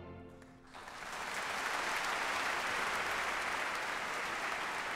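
Concert-hall audience applauding. The orchestra's final chord dies away at first, and the clapping breaks out within the first second and holds steady.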